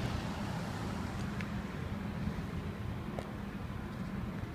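Steady low rumble of engines running in the street, with a constant low hum and a few faint clicks.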